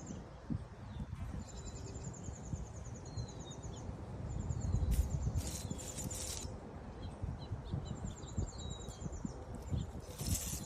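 A small bird singing a high, fast trill, repeated several times with pauses, over a low outdoor rumble, with two brief rustles about five and ten seconds in.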